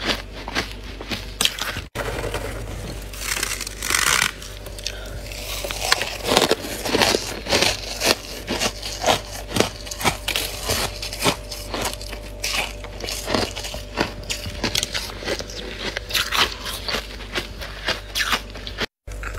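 Thick freezer frost crunching and scraping in quick, irregular, crisp strokes, several a second. It breaks off briefly twice, about two seconds in and near the end.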